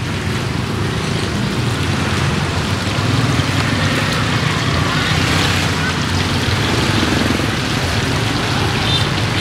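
Okra deep-frying in a pan of hot oil: a steady, loud sizzle, with a low steady hum underneath.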